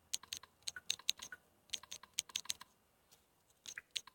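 Typing on a smartphone's touchscreen keyboard: quick runs of short, sharp key clicks in two bursts, then a pause of about a second near the end.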